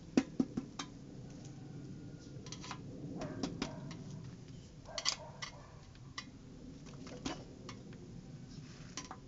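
A screwdriver tapping the locking ring of a Sym Symphony scooter's fuel level sender, turning it tight on the fuel tank. Sharp taps: a quick run of three or four at the start, then single taps scattered through.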